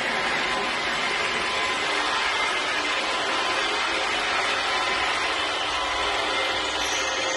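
Klindex Extrema edge floor grinder running steadily as it works along the edge of a stone floor, with a steady machine whine.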